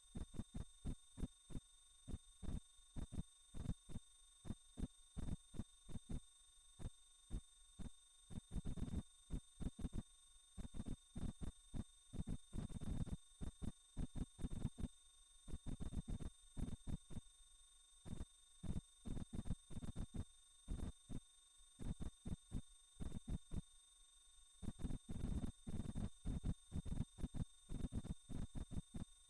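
Electronically generated pure tone, very high-pitched and steady, pulsing evenly in loudness several times a second, with faint low rumbles underneath: a sound-healing frequency track.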